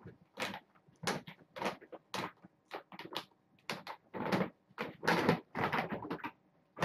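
Clear plastic bag crinkling and rustling as it is handled, in short irregular bursts about two a second.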